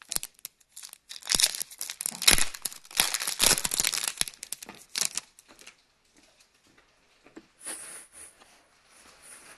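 Trading card pack wrapper being torn open and crinkled in the hands, a dense run of crackling rustles that dies down after about five seconds.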